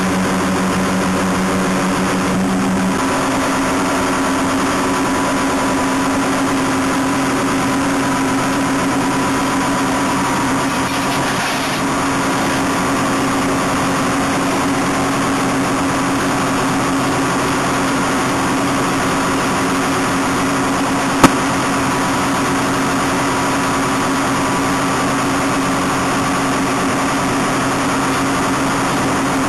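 SAMSON raspberry harvester running steadily, its engine and shaking machinery giving a constant mechanical hum. A single sharp click comes about three-quarters of the way through.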